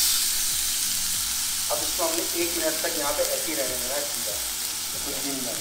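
Wagyu beef steak searing in a hot pan with a steady, loud sizzle: the final sear of the reverse-sear method, after slow cooking, to put a crust on the meat.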